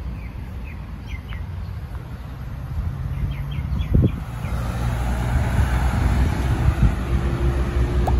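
Outdoor ambience: a few short bird chirps over a low rumble, then road traffic noise growing louder from about halfway through, with a vehicle's engine audible near the end.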